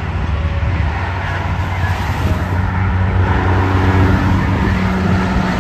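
Highway traffic: tyre noise and the steady low drone of semi-truck diesel engines passing on a divided highway, with a second steady engine tone joining about halfway through.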